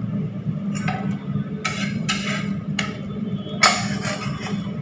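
Kitchen utensils knocking and scraping on the counter during cooking: a handful of short clinks and scrapes, the sharpest knock a little past halfway, over a steady low hum.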